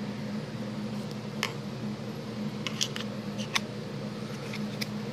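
A scattering of short, sharp clicks and taps as a Buck 692 fixed-blade knife is handled against and slid toward its homemade Kydex sheath, over a steady low background hum.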